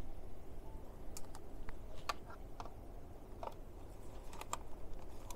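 Scattered light clicks and taps from small objects being handled, irregular and a few at a time, over a faint low hum.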